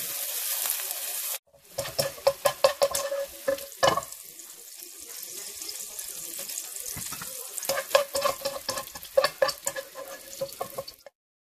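Diced onion sizzling in clarified butter in a wok while a wooden spatula stirs it; after a brief cut the sizzle is fainter, and a wire spider skimmer clicks and scrapes against the pan in two bursts as the onion is lifted out.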